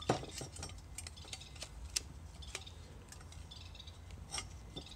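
A few light metallic clicks and taps, spread irregularly, as the folding wire handle of a Stanley stainless steel camp frying pan is worked open by hand.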